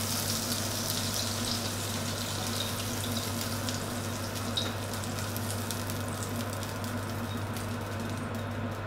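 Hot oil in a wok just taken off the heat, sizzling with fine crackles that die away as it cools. A steady low hum runs underneath.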